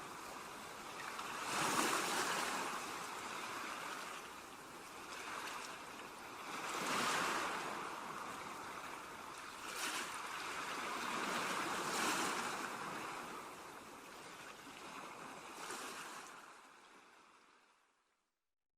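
Ocean waves washing onto a beach, surging every few seconds, then fading out to silence near the end.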